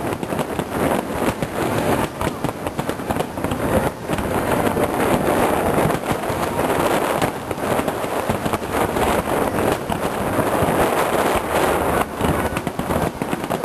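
Aerial fireworks shells bursting in quick succession, a continuous run of booms and crackle with many sharp bangs close together.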